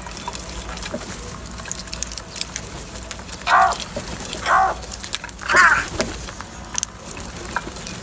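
House crows cawing three times about a second apart, the third call the longest and loudest, over frequent small clicks of beaks pecking grain from a plastic bowl.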